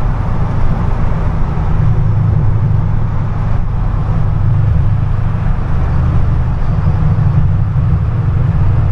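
Ford Shelby GT500's supercharged 5.4-litre V8 and road noise while the car is driving, a steady, loud low drone with no revving.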